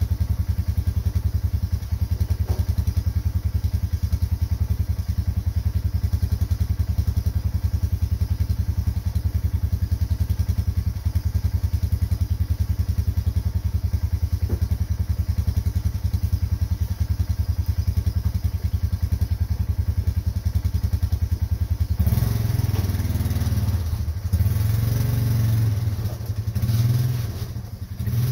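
A vehicle engine running at a steady idle, then from about 22 seconds in the sound turns uneven and changes in pitch, as if revved or put under load.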